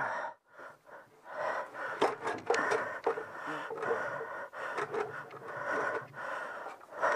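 A man breathing hard and straining while heaving an engine into place, with a few sharp knocks at about two to three seconds in.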